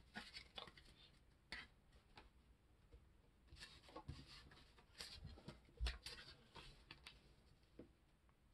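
Faint handling of paper trading cards on a wooden table: soft rustles and light taps as a stack is squared and set down and a paper booster pack is picked up. One slightly louder knock comes about six seconds in.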